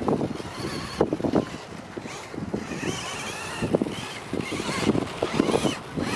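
Kyosho Ultima 2WD electric RC buggy's motor whining, its pitch rising and falling as the throttle is worked through the turns, with gusts of wind on the microphone underneath.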